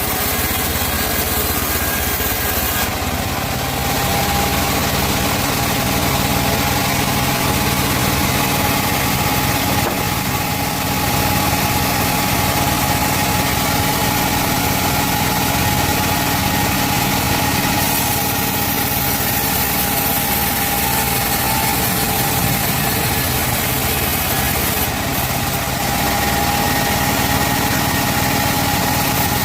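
Chainsaw engine running steadily at a held, even speed, with one sustained engine note, while sawing teak wood.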